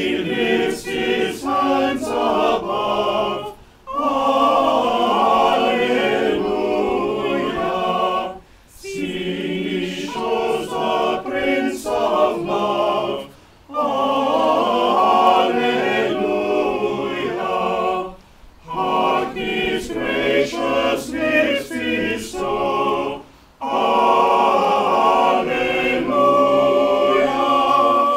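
Small choir singing unaccompanied, in phrases of about five seconds with a brief pause for breath between each.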